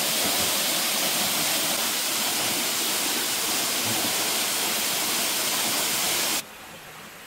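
Steady rushing of a waterfall, which cuts off suddenly about six seconds in, leaving a much fainter steady hiss.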